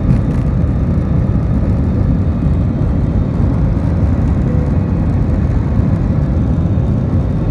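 Steady, loud rumble of an IndiGo airliner's engines and rushing air heard from inside the passenger cabin during takeoff.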